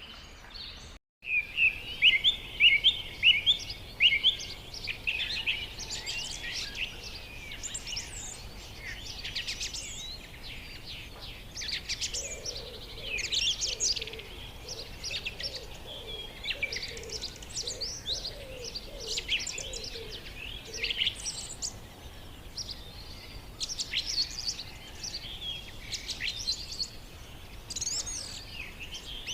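Small pet parrots chirping and chattering in quick, repeated short notes, with a softer lower-pitched series of notes in the middle. The sound drops out briefly about a second in.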